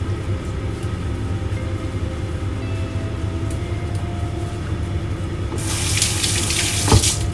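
Water running from a kitchen tap for about a second and a half near the end, stopping with a sharp knock, over a steady low hum.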